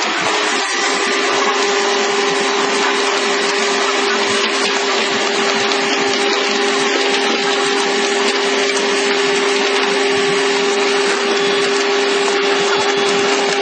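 Hydraulic excavator running its hydraulics to work a pile breaker: a loud, steady machine noise with a constant whine over hiss, unchanging throughout.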